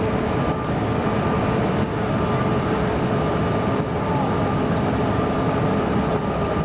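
Airliner cabin noise in flight: a steady roar of engines and rushing air, with a steady hum running through it.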